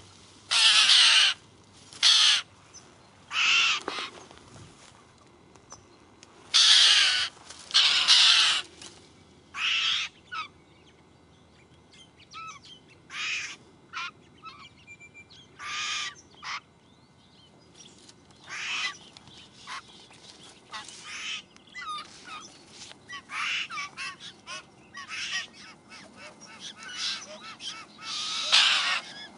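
A group of white-winged choughs calling, a run of harsh, scratchy calls. The calls are loudest in the first nine seconds and again near the end, with quieter ones in between.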